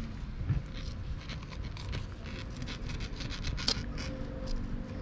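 Fillet knife sawing through the skin and along the backbone of a pompano jack: a run of short, uneven scraping strokes.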